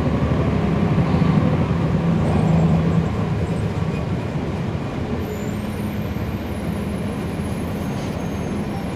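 The Cummins ISL9 inline-six diesel of a NABI 40-SFW transit bus, heard from on board, pulling under load. It grows louder and higher over the first three seconds, eases off about three seconds in, then runs on steadily.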